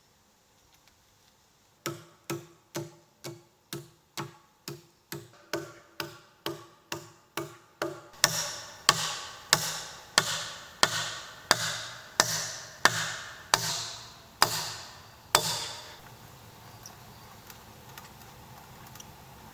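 Repeated blows of a hand tool striking wood in a steady rhythm: lighter, quicker strikes at first, then louder strikes about every two-thirds of a second, stopping about fifteen seconds in.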